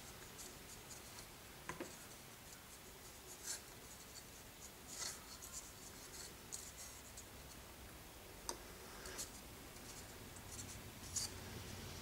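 Thin plastic model-kit wall sections being handled and pressed together by hand: faint rubbing and rustling with a handful of small sharp clicks as the curved parts and their notches are pushed into place.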